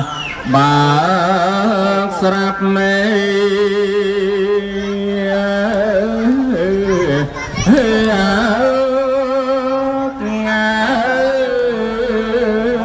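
Khmer smot: a monk's solo Buddhist verse chanting, one male voice holding long notes that waver and slide between pitches. It pauses briefly for breath about half a second in and again about seven and a half seconds in.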